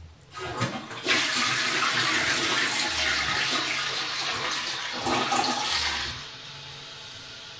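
Toilet flushing: a loud rush of water begins about a second in and runs for about five seconds, then falls to a quieter steady hiss as the tank refills.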